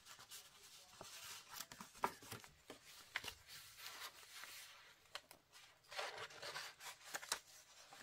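Faint rustling of paper and card with scattered light taps, as cards are handled in a paper pocket and a page of a handmade paper journal is turned.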